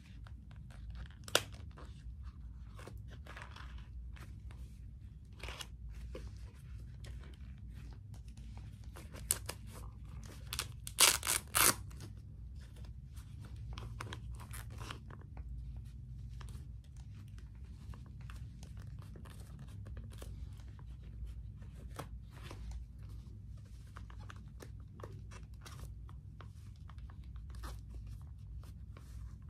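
Armoured leather motorcycle gloves (Knox) being flexed and rubbed together: leather creaking and rustling with short clicks and crackles from the hard knuckle and finger armour, and a louder burst of crackling a little past the middle.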